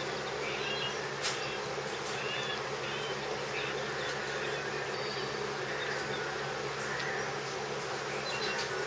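A steady low buzzing hum, with a few faint, short high whines rising and falling in the middle.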